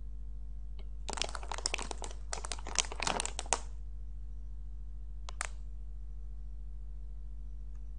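Plastic snack bag crinkling as it is handled and turned, a dense crackle for about two and a half seconds, then one short crinkle about five seconds in, over a steady low hum.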